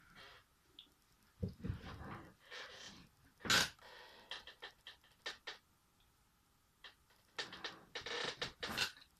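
A person's short, panting breaths and sniffs while trying to bring on a sneeze, with a sharp, loud burst about three and a half seconds in and another run of quick breaths near the end.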